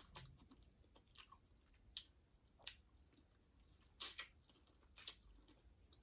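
Close-up eating sounds: chewing seafood, with about seven short, sharp clicks at irregular intervals.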